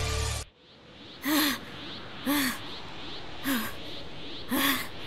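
Music cuts off about half a second in. Then comes heavy, voiced panting from an exhausted young fighter: four ragged breaths about a second apart, each rising and falling in pitch.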